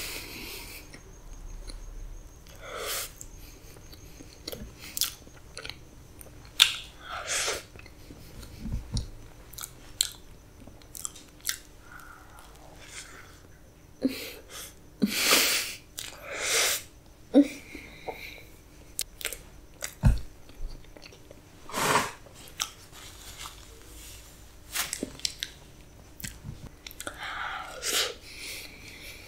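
Person eating black forest cake: bites and soft, wet chewing with irregular mouth smacks and clicks.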